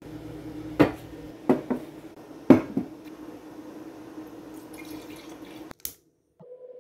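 Glass clinks and knocks as a stemless wine glass is handled and set down, then wine poured from a bottle into the glass with a soft, steady rush. A single sharp click comes near the end.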